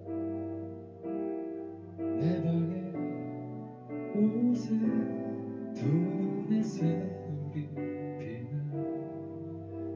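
Live band playing a slow pop ballad, with guitar prominent over sustained keyboard chords.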